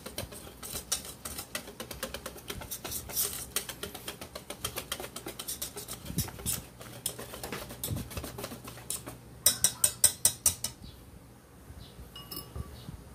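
Wire whisk beating a thin rice-flour batter in a stainless steel bowl: rapid clinking of the wires against the metal, with a louder, quicker run of clinks about ten seconds in before the whisking stops near the end.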